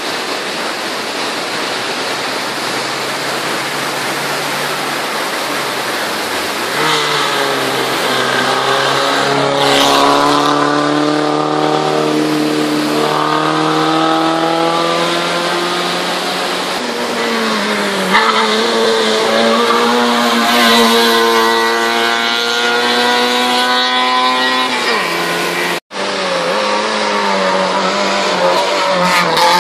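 Hillclimb race car engines revving hard under acceleration, the pitch climbing and dropping back several times. The sound breaks off abruptly about 26 seconds in, then another car's engine picks up.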